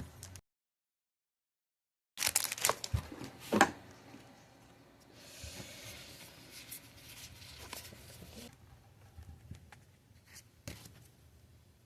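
Pokémon trading cards being handled: scraping and rubbing of card stock, loudest in a cluster of scratchy strokes about two seconds in after a brief dead-silent gap. A softer steady sliding follows for a few seconds, then a couple of light taps near the end.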